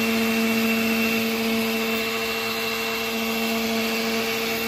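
Oster countertop blender running at a steady speed, blending a green protein shake of spinach and mixed greens. Its motor gives a loud, even hum with a steady whine.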